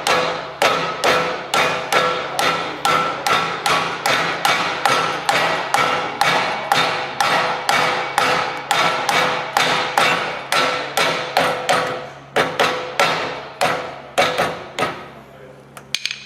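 Rubber hammer tapping a new bearing into its seat in a swinging arm, steady blows at about two or three a second, each with a short metallic ring. The blows stop about 15 seconds in, followed by two light taps.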